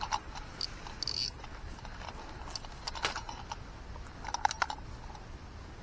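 Footsteps through dry grass: a scatter of light crunches and clicks, with a small cluster about a second in and more between three and five seconds in.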